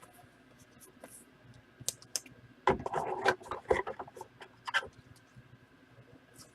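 Scattered light clicks, taps and scratching from small objects being handled on a tabletop, with a denser cluster of taps and rustling about three seconds in.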